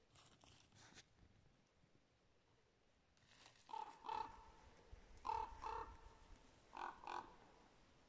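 A crow cawing: six harsh caws in three pairs, starting a few seconds in.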